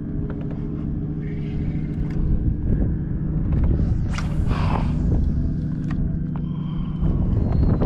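A motor running steadily with a low hum, joined by a brief rushing noise about four seconds in.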